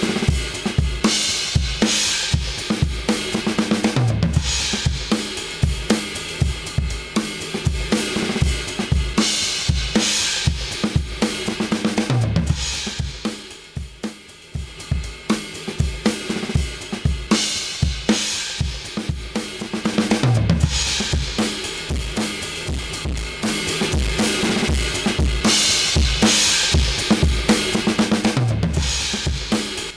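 Drum kit playing a steady groove of kick, snare, hi-hat and cymbals, run through a FET compressor plugin modelled on the Urei 1176. The playing drops back briefly about halfway through.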